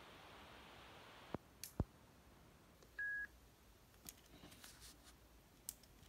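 Faint desk sounds: a few small clicks and taps as things are handled, then a short, steady high-pitched beep about three seconds in, the loudest sound. Light scattered ticks follow as a pen is brought to a sticky-note pad.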